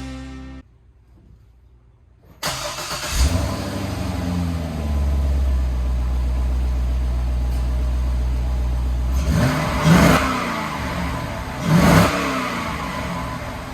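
2007 Corvette's LS2 V8 on its stock exhaust running after a short silence, settling into a steady idle, then two short throttle blips about two seconds apart near the end.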